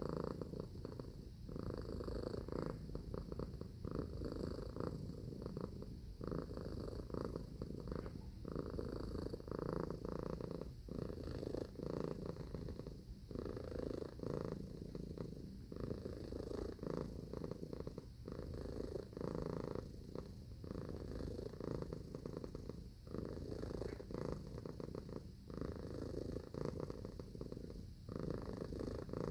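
Domestic cat purring steadily and close up, a continuous low rumble with a brief dip roughly every two and a half seconds.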